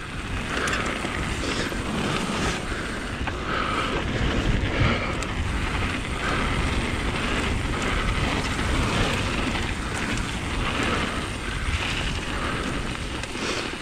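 Wind rushing over the microphone with the steady rumble of an electric mountain bike's tyres rolling over a gravel trail.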